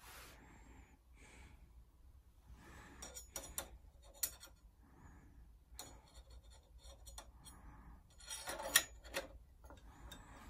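Steel drape hanger scraping and clicking against the metal top of a pipe-and-drape upright as it is fitted into the slot: a few light clicks about three to four seconds in, then a louder clatter of metal-on-metal clicks near the end as it seats.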